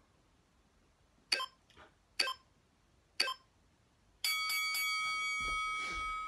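Workout interval timer counting down: three short beeps about a second apart, then a long steady beep that starts about a second later and runs on, marking the end of the timed plank interval.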